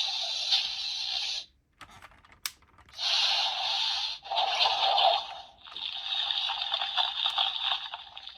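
Kamen Rider Geats PDX Zombie Raise Buckle toy playing its electronic sound effects through its small built-in speaker, in several bursts. A short gap about two seconds in holds a few clicks, such as the buckle's button being pressed.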